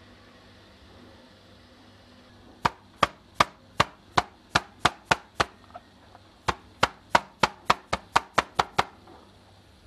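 Kitchen knife chopping into raw chicken pieces, the blade knocking against the cutting board to score the meat for marinade. About nine sharp chops at roughly three a second, a short pause, then a quicker run of about ten more.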